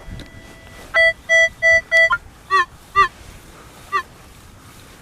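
Metal detector target tones, likely a Minelab CTX 3030: four short, evenly spaced beeps about a second in, then three brief chirps that bend in pitch, as the coil passes over a buried metal target.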